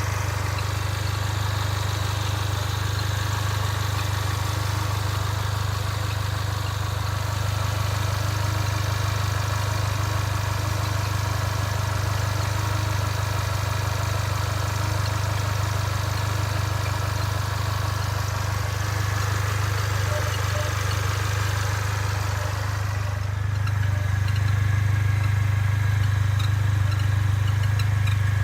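Mercedes-Benz A45 AMG's turbocharged four-cylinder running with a steady low drone and road hiss while the car is driven. About 23 seconds in the hiss thins and the low drone grows louder.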